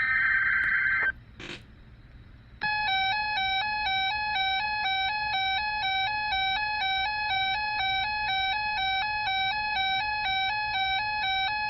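Emergency weather-alert broadcast signalling: a one-second burst of buzzing data noise, then, after a short gap, a loud electronic attention tone rapidly alternating between pitches, held for about ten seconds ahead of a new alert message.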